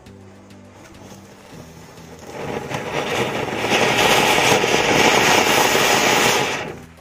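A Diwali flower-pot (anar) cone fountain firework spraying sparks: a loud, even rushing hiss. It builds from about two seconds in and stops abruptly near the end.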